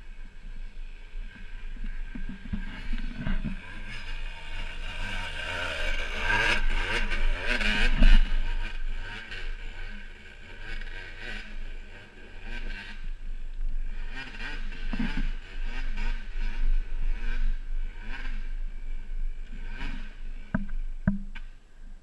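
Dirt bike engine revving up and down as it climbs a steep, rutted trail, loudest about six to eight seconds in, with a sharp knock around eight seconds.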